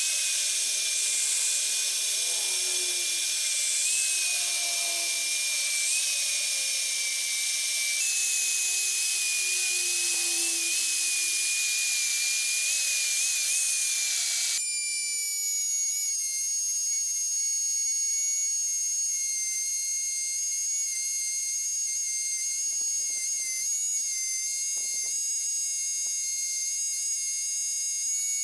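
Angle grinder grinding a welded mild-steel sculpture, a steady whine over a dense hiss of grinding. About halfway it cuts suddenly to the higher, thinner whine of a small rotary tool with a grinding disc working the steel.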